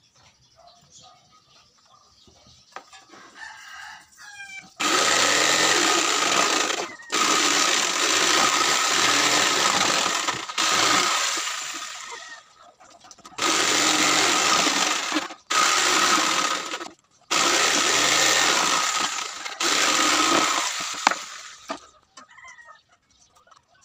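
A handheld electric power tool cutting plywood, started and stopped in about seven runs of one to three seconds each, with a steady whine throughout each run. A rooster crows faintly in the first few seconds.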